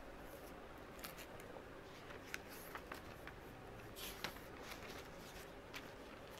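Faint paper rustling and a scattering of light clicks as a spiral-bound notebook is handled and moved, over a low steady hiss.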